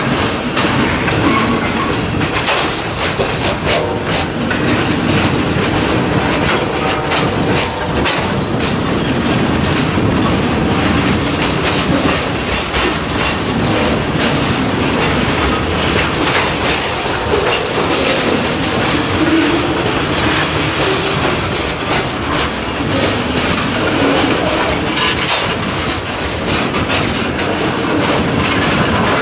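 Freight train of covered hopper cars rolling past: a steady rumble of steel wheels on the rails, with repeated clicks as the wheels cross rail joints.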